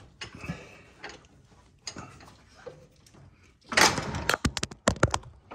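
Metal scraping and rubbing as the pull pin on a John Deere 275 mower deck's rear lifting arm is worked loose, then a loud rattling clatter of sharp knocks near the end as the pin is jerked out.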